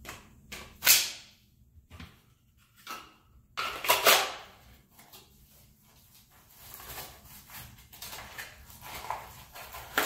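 Handling noises of a Glock 45 pistol: a sharp plastic-and-metal click about a second in and a few lighter knocks, a longer scraping rasp around four seconds, then softer rustling of clothing and holster as the pistol is pushed into a waistband holster.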